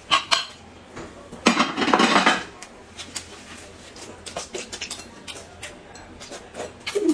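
Eating at a table: noodles slurped, with one long loud slurp about one and a half seconds in, and utensils clicking against a ceramic bowl.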